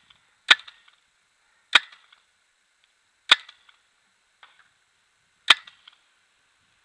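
Paintball marker firing four single shots, unevenly spaced one to two seconds apart, each a sharp pop.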